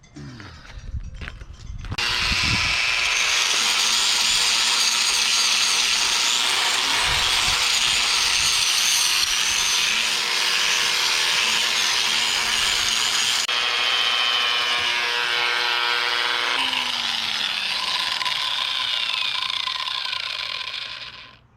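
Angle grinder running and grinding down welds on steel. It starts about two seconds in and cuts off just before the end, its motor pitch shifting a few times as it is loaded.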